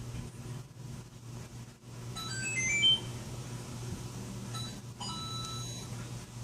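Sound-effect horn speaker playing a short electronic jingle: a quick run of beeping notes climbing in pitch about two seconds in, then a few more beeps a couple of seconds later, over a steady low hum.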